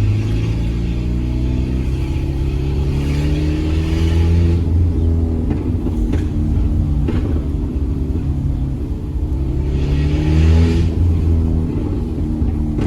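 Peugeot 206 1.4 8V four-cylinder engine with a straight-through exhaust, no catalytic converter or muffler, accelerating twice. The pitch climbs for a few seconds, drops about 5 s in, then climbs again to a louder, raspier peak near 11 s before falling back.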